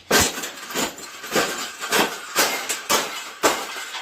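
Cage being bent and folded by hand: a run of rattling clanks and crunches, about two a second.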